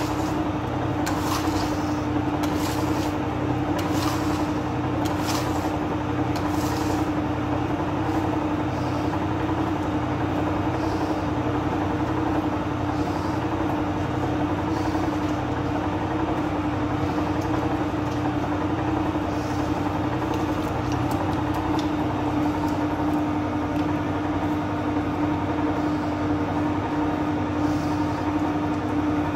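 Large electric dough-kneading machine running steadily, its motor giving a constant hum as the kneading arm churns bread dough in the bowl. A few faint scrapes or knocks sound over it in the first several seconds.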